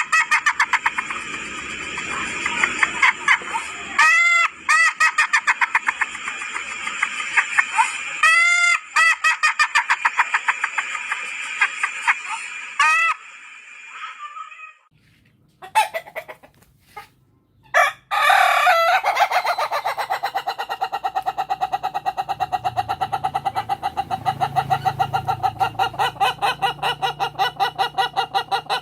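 Ayam Ketawa roosters crowing: each crow opens with a short arched note and runs on into a long, fast stuttering series of notes like laughter. Several crows come about four seconds apart, then after a brief near-silent gap one long rapid crow fills the second half.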